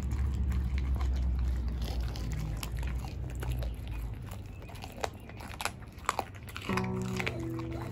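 Dog gnawing a raw meaty leg bone: wet chewing with scattered sharp crunches and cracks, the loudest about five and six seconds in.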